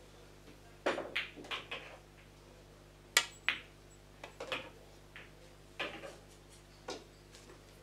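Pool balls clacking: a cue striking the cue ball, then balls colliding with each other and the cushions. A series of sharp clicks, the loudest a little over three seconds in.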